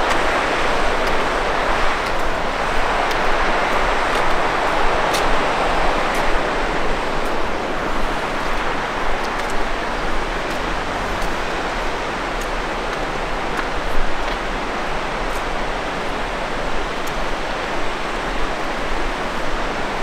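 Steady rushing of a mountain river, an even wash of water noise.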